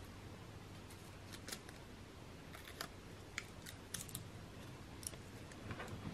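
Faint, irregular light clicks and ticks, about ten over a few seconds, of small plastic model-railway parts being handled and fitted, over a low steady room hum.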